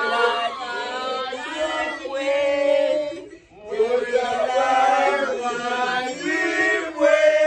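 A group of men and women singing a birthday song together, in held sung phrases with a short pause for breath about three and a half seconds in.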